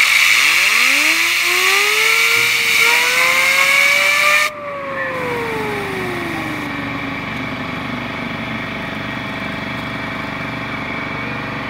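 Ball-bearing fidget spinner driven by a compressed-air blow gun: a loud hiss of air with a whine rising in pitch as the spinner speeds up. About four and a half seconds in the air cuts off and the whine falls as the spinner coasts down, settling into a steadier lower hum.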